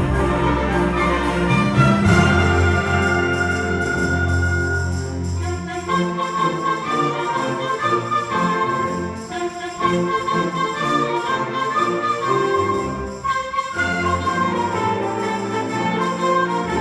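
A school concert band of woodwinds and brass playing sustained, full chords. The low instruments drop out about six seconds in, leaving the upper winds and brass, and come back in near the end.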